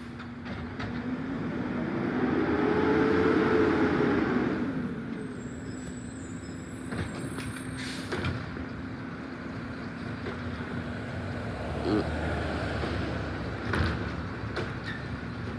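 Garbage truck working at the curb: its engine revs up and back down over a few seconds, then a short hiss with high squeals about eight seconds in. A pickup truck drives past near the end, with a few knocks.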